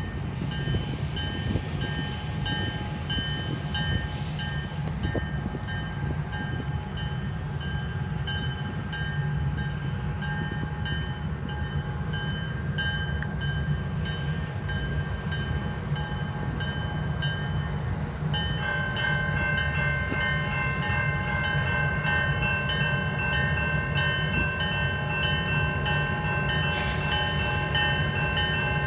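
Two EMD diesel locomotives, a CN GP9RM and a GP38-2, rumbling as they approach and pass, while a level-crossing bell dings about twice a second. About two-thirds of the way through, a locomotive horn starts sounding a steady chord and holds it.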